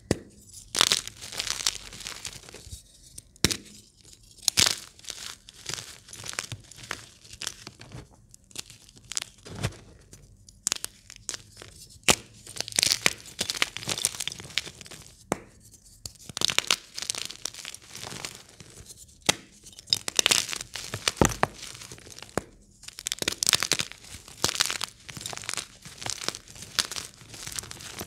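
Blocks of gym chalk (magnesium carbonate) crushed and crumbled by hand in a tub of broken chalk: dry crunching and crackling in bunches every second or two, with sharp snaps as pieces break.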